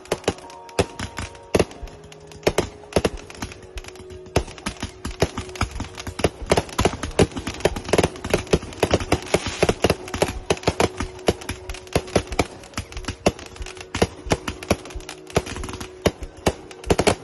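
A barrage of fireworks going off: a rapid, irregular string of bangs and pops, several a second, overlapping at times.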